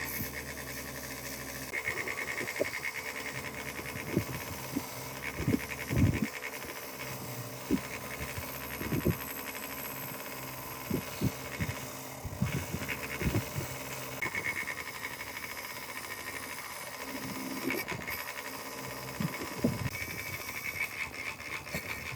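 A steady machine hum with a buzzing band, broken by many short, sharp knocks at irregular intervals, the loudest about six seconds in.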